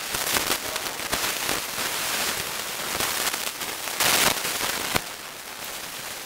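Rattan weapons striking shields and armour in armoured combat: a run of sharp cracks and knocks, with the loudest clash about four seconds in and a single sharp hit about a second later.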